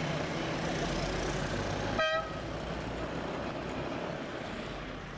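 Road noise from a vehicle driving along a city street, with one short car-horn toot about two seconds in. The road noise slowly gets quieter after the horn.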